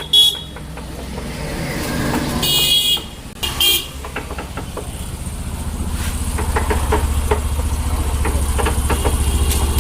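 Single-cylinder motorcycle engine running steadily and growing a little louder in the second half, with a short horn toot right at the start and two more about two and a half and three and a half seconds in.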